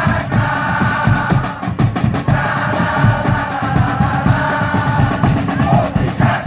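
Music: fast, dense drumming with held, sustained voices or tones over it.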